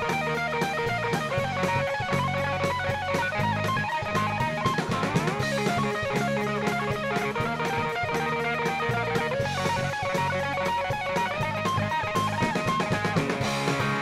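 A live band plays an instrumental passage, with electric guitars over a drum kit keeping a steady beat.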